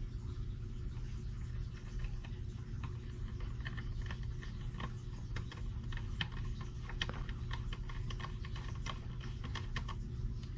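Small precision screwdriver driving a screw into the side of a metal meter case: a run of light, irregular clicks and ticks. A steady low hum runs underneath.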